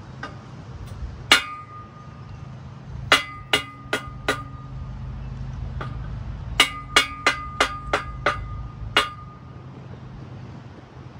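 Metal striking metal on a solar rack's rail: sharp taps that ring briefly, one about a second in, four in quick succession around three to four seconds, then a run of seven from about six and a half to nine seconds.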